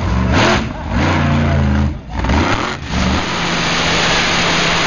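Competition pulling tractors at full throttle: for about two seconds one engine revs in steps, then after a break another pulling tractor runs flat out down the track, hauling the weight sled with a loud, dense, steady engine noise.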